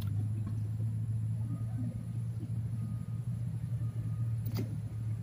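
A steady low rumble, with one short sharp click about four and a half seconds in.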